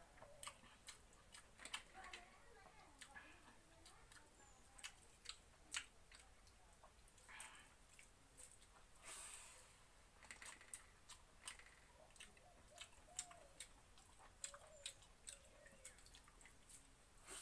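Faint eating sounds: many small, sharp mouth clicks and smacks of chewing, as watered rice is eaten by hand.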